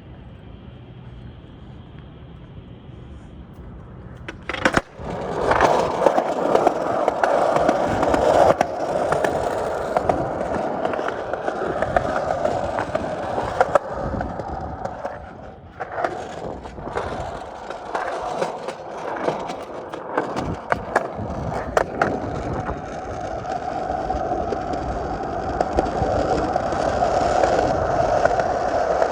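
Skateboard wheels rolling, with a steady rumble and scattered clicks and knocks. The rolling sets in loudly about five seconds in after a quieter stretch, and it drops away briefly twice along the way.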